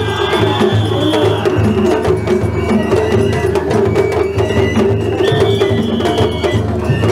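Festival float hayashi playing: taiko drum beats under a high flute melody of long held notes that step up and down in pitch.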